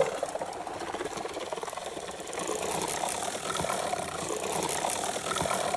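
Carp fishing reel ratcheting steadily while a freshly hooked carp is played on the rod.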